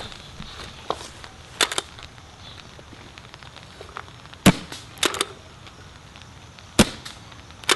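Sanchez Machine SM1 pump paintball marker with CCM internals and a cloud-dampener sleeve on the barrel, firing two shots about two seconds apart, each a short sharp pop. Pairs of quick clacks come before and between the shots, the pump being worked back and forth to load the next ball.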